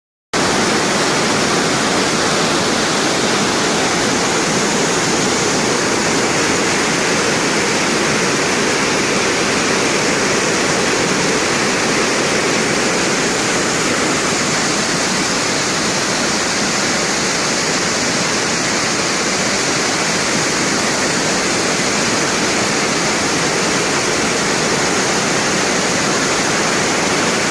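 Small waterfall: water pouring and splashing in a steady, even rush.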